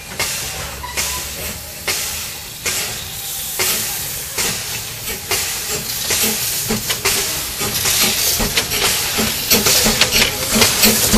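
Narrow-gauge steam locomotive starting away with its train: steam hissing from the open cylinder drain cocks over exhaust chuffs that come about once a second at first and quicken as it gathers speed.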